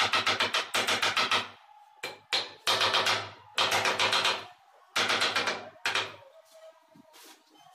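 Rapid rattling, about nine taps a second over a low hum, as border tiles are set along the top row of wall tiles. It runs for a second and a half, then comes in short stop-and-start bursts before dying away about six seconds in.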